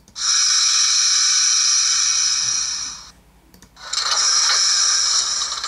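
The ESU LokSound decoder in an HO scale F40PH-2D model playing its brake sound through the model's speaker: two long air hisses, the first about three seconds, the second under two seconds, with a short gap between.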